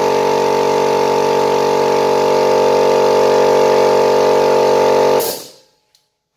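PROTECO K-1100 1.1 kW oil-lubricated air compressor running steadily, then cutting out about five seconds in with a short hiss of air as its motor winds down, followed by a faint click. The stop is the pressure switch shutting the pump off as the tank reaches its cut-out pressure.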